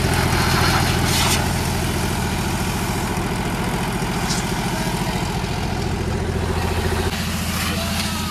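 Mahindra 475 DI tractor's four-cylinder diesel engine running steadily while it drives an air compressor, with a steady hiss of compressed air blowing from the hose. The engine note shifts slightly about seven seconds in.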